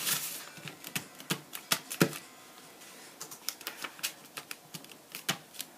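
Folded white paper being handled and creased by hand, rustling and crinkling with irregular sharp clicks. The clicks are thickest in the first two seconds, fall away for a moment, then come again sparsely.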